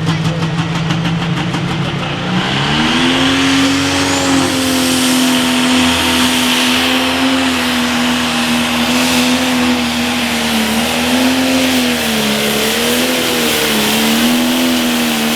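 John Deere 8R 410 Pro Stock pulling tractor's turbocharged diesel engine running hard under load. Its pitch climbs about two seconds in, holds steady, then wavers up and down near the end.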